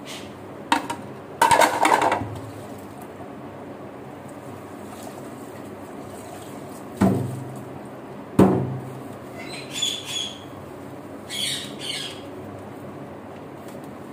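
Dishes being washed by hand in a sink: ceramic plates knocking and clattering against each other and the sink several times. Near the end there are two short bursts of high squeaking.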